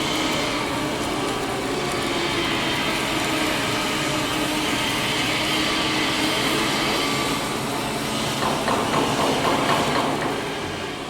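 Steady machinery noise of a submerged arc welding setup running on a tank seam, with a louder rapid crackling rattle about eight to ten seconds in; the sound begins to fade near the end.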